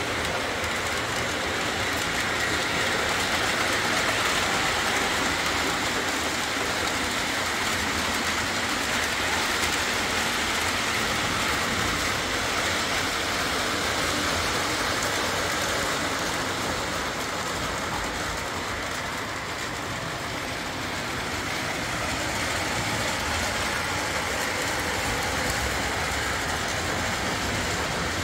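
Lionel O-27 Alco diesel model train running on its three-rail track: a steady whir of the motor and the rattle of wheels on the rails. It eases a little for a few seconds past the middle, then comes back up.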